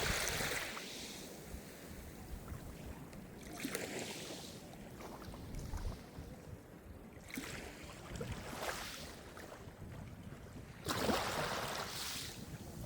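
Calm sea surf: small waves break and wash up the shore in a swell of noise every three to four seconds, with a low hiss of water between them.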